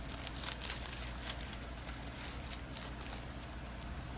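Clear plastic sleeves around acrylic character standees crinkling as they are handled, a run of quick crackles that thins out near the end.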